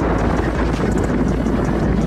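Hero XPulse 200's single-cylinder engine running steadily as the motorcycle rides along, with wind buffeting the microphone.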